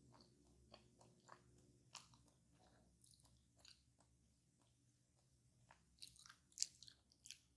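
A person chewing and biting into a crisp fast-food pie close to the microphone: scattered small crunches and mouth clicks, with a louder flurry of crunching near the end.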